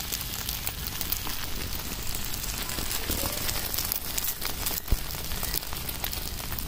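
Bread omelette frying in oil in an iron pan over a wood fire: a steady sizzle with scattered small crackles, and one sharp pop about five seconds in.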